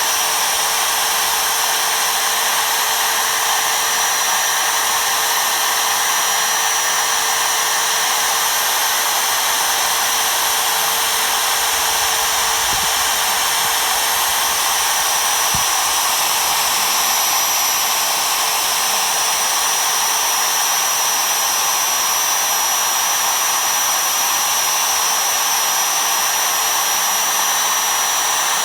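An MPCNC's router spindle running steadily at high speed while milling foam: a continuous high-pitched motor whine over a dense rushing hiss.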